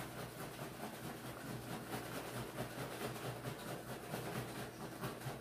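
Nearly empty bottle of coffee creamer being shaken hard, the last of the liquid sloshing in a steady rhythm as it is whipped frothy.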